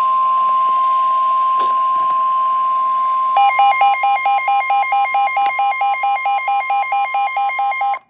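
NOAA Weather Radio warning alarm tone, a loud steady 1050 Hz tone that signals a warning is about to be read. About three seconds in, a rapid pulsing beep of about six a second joins it. Both cut off suddenly near the end.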